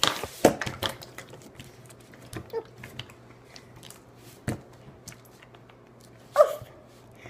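Slime being pressed and handled with a plastic bottle lid used as a cookie cutter: scattered clicks, taps and squishes, a sharp tap midway, and a short squeaky squelch near the end.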